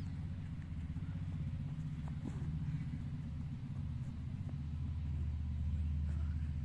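A steady low droning rumble, like a motor running, growing louder past the middle.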